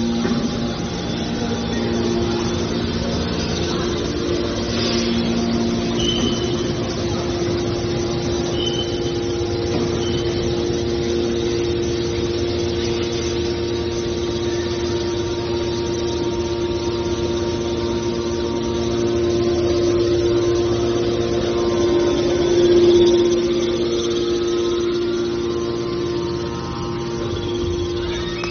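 Hydraulic mobile scrap car baler running: its engine and hydraulic power unit give a steady hum with a strong steady tone, with a few short high squeaks and a brief swell in loudness about three-quarters of the way through.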